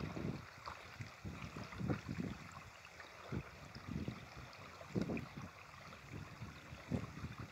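Irregular low rumbling gusts of wind buffeting the microphone, about one a second, over a faint steady wash of river water along the stony shore.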